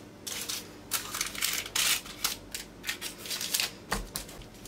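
Baking paper crinkling and rustling in a round metal tray as hands press and stretch soft yeast dough into it: a run of quick, irregular, crisp crinkles, with a soft dull thud near the end as the palms press the dough flat.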